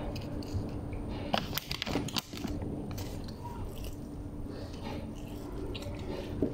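Close-up eating sounds: biting and chewing chicken and a flatbread wrap, with a cluster of sharp crunchy clicks about one and a half to two seconds in and another sharp click near the end.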